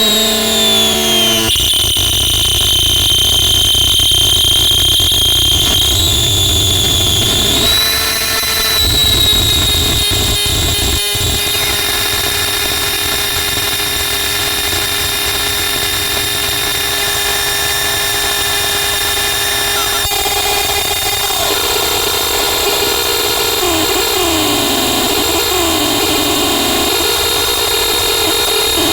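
Harsh noise music: a loud, dense wall of electronic noise layered with several shrill, whining tones, some gliding in pitch. It changes abruptly about a second and a half in and again near eight seconds, with a brief dropout a little after ten seconds.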